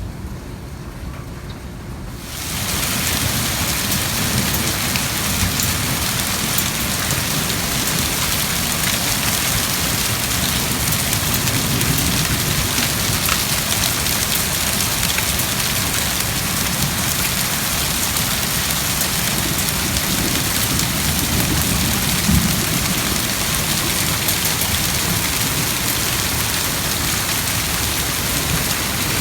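Heavy rain and hail from a severe thunderstorm pelting down: a dense, steady hiss of fine pattering impacts that suddenly grows much louder about two seconds in.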